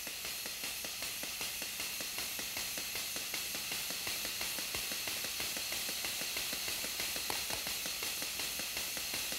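Air motor of a Nordstrom 400D Hypregun sealant pump running: a steady hiss of exhausting air with a quick, regular ticking of the pump mechanism, as trapped air and sealant are purged out through the relief valve fitting.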